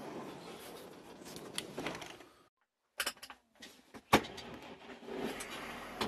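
Rustling steps, then a few clicks and one sharp bang about four seconds in, as the tractor cab door is shut, followed by the steady sound of the tractor running.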